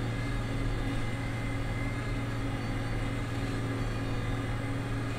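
International 7288 2+2 tractor's 466 intercooled diesel engine running steadily under load, heard from inside the cab while pulling a six-bottom plow.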